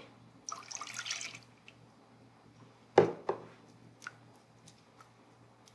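Milk poured from a small glass bowl into a stainless-steel saucepan of cream, a splashing pour of about a second, followed about three seconds in by a sharp knock and faint taps as a silicone spatula stirs the mixture.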